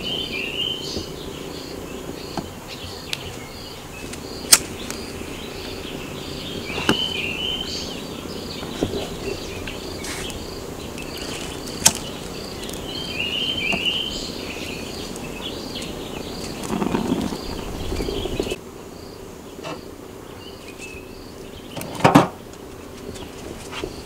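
Outdoor ambience: an insect, likely a cricket, chirping in a steady, even rhythm, with a bird repeating a short phrase every six or seven seconds. A few sharp clicks come through as kindling is lit and catches in a steel fire pit.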